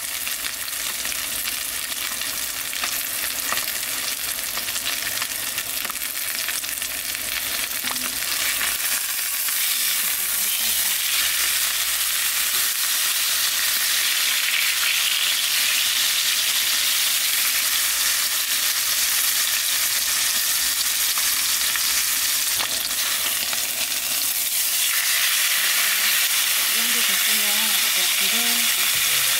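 Tomahawk steak sizzling as it sears in a hot frying pan, a steady hiss of fat and juices that grows louder about ten seconds in.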